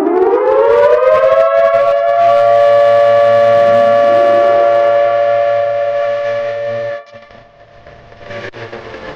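Civil defense siren winding up, its pitch rising for about two seconds, then holding a steady wail of two close tones. It cuts off suddenly about seven seconds in, leaving a much fainter, indistinct sound.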